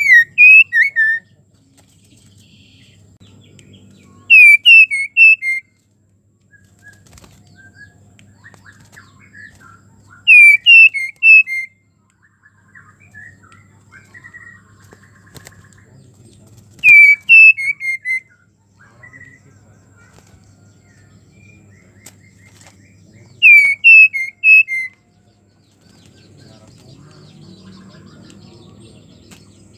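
Female white-rumped shama in breeding condition calling for a male. Five times, about every six seconds, it gives a short phrase of four or five clear whistled notes stepping down in pitch. Softer single notes come between the phrases.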